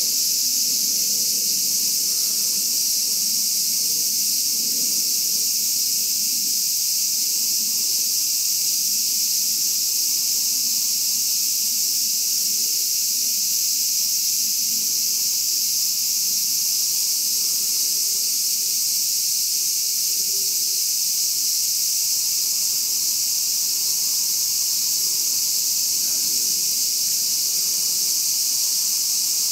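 A steady, high-pitched insect chorus.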